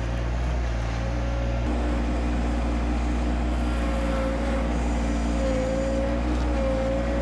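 Yanmar compact tractor's diesel engine running steadily under work, heard close up from about two seconds in. A higher whine swells and fades a few times in the second half as the front-loader hydraulics are worked.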